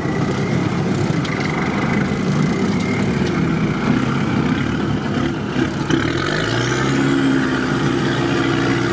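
Off-road 4x4's engine running steadily as it drives slowly along a muddy track; about six seconds in the engine note rises as it accelerates.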